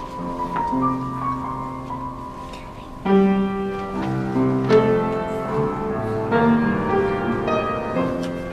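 Instrumental dance music from a stage musical, led by keyboard with sustained held notes and chords. About three seconds in, a louder, fuller chord enters and the music carries on at that higher level.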